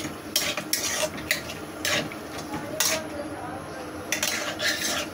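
A spoon stirring soup in a cooking pot, making a run of short, irregular scrapes and clinks against the pot.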